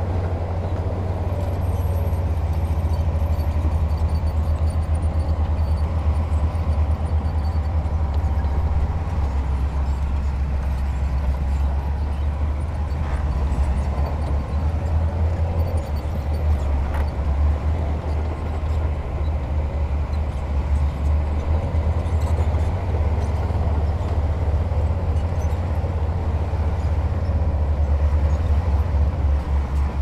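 Heavy diesel construction machinery running steadily, a deep low rumble throughout with faint scattered clicks above it.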